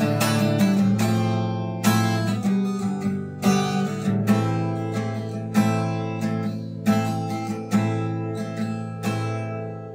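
Höfner acoustic guitar played without voice: a quick run of picked notes, then single chord strokes about a second apart, each left to ring. The level sinks steadily and the last chord rings away at the end of the piece.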